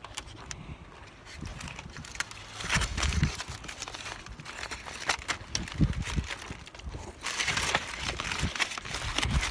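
Strong gusty wind buffeting the microphone in low rumbling gusts, growing into a louder rush in the last couple of seconds, with scattered small clicks and rustles.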